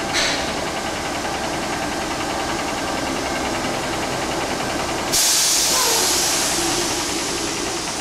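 Kenworth cab-over truck's diesel engine idling, with a short burst of air hiss just after the start. About five seconds in, a loud sudden hiss of air that slowly fades, typical of the truck's air brakes being set, and a thin high whistle begins to fall near the end.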